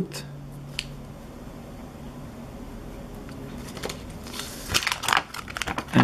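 Crinkling and crackling of a puffy sticker sheet being handled as a sticker is peeled off, mostly in a short cluster about four and a half seconds in, with a faint click about a second in. A low steady hum sits underneath.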